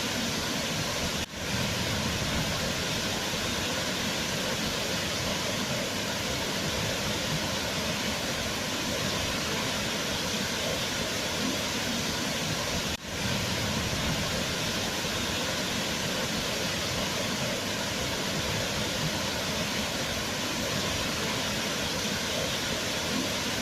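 Waterfall: a steady rush of falling water. Two very brief dips in level break it, about a second in and again about halfway through.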